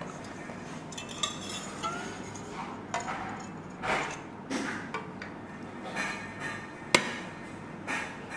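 Kitchen clatter: dishes and utensils being handled, with irregular clinks and knocks about once or twice a second and a sharper knock near the end.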